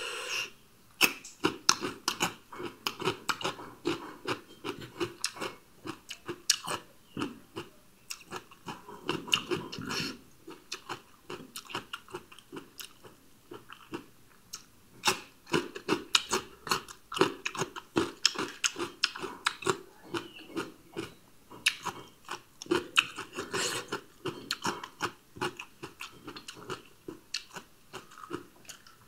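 Close-miked chewing of raw cucumber and radish pieces: crisp, wet crunches repeat throughout, easing off for a few seconds midway before picking up again.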